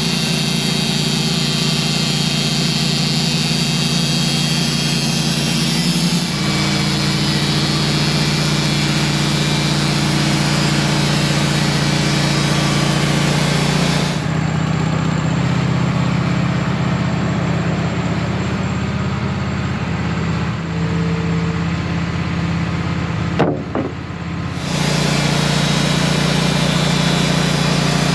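Wood-Mizer portable band sawmill's engine running steadily while the log is sawn. Its tone shifts abruptly a few times, and there is a short knock late on.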